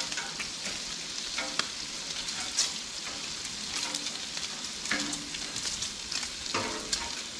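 Bacon strips sizzling steadily in their fat on a hot Blackstone flat-top griddle, with a few sharp clicks and pops.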